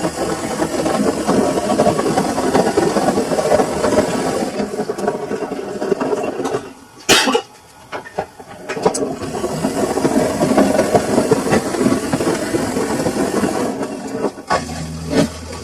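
Samsung washing machine mid-wash, its drum turning the laundry with a dense churning noise. The churning stops for about two seconds midway, with one sharp click, then starts again, and near the end gives way to a steady low hum.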